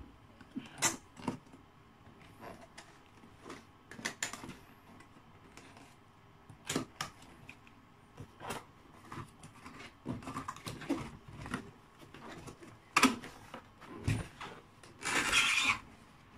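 A cardboard laptop box being handled and opened by hand: scattered taps, knocks and scrapes of cardboard, with a longer rasping scrape near the end as the lid is pulled up.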